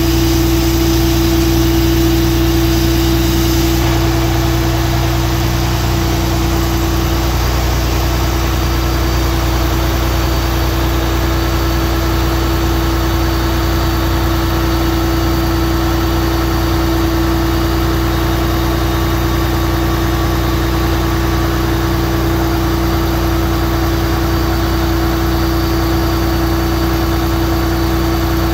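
Fire truck's diesel engine running steadily at idle with a constant hum, the engine that drives the raised aerial ladder platform.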